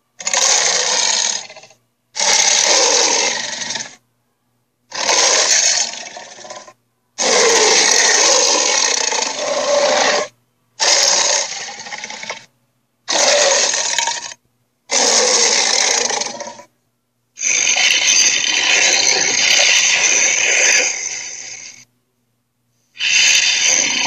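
Cartoon Sharptooth (tyrannosaur) roar and growl sound effects, played one after another: nine harsh, rough roars of one to four seconds each, with short silent gaps between them.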